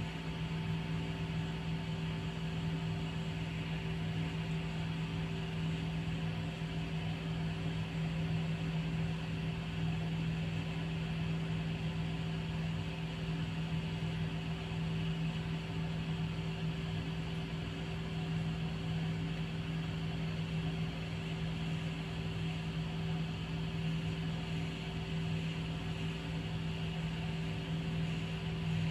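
Steady low mechanical hum over a faint hiss, holding one pitch and level.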